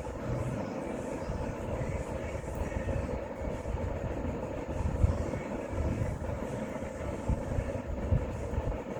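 Hand tools knocking on engine parts against a steady low rumble, the sharpest knock about five seconds in and two more near the end.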